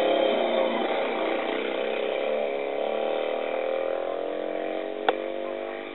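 Monomill DB single-seater's Panhard flat-twin engine under hill-climb racing load, its note dropping over the first couple of seconds and then climbing again as it accelerates. A single sharp click about five seconds in.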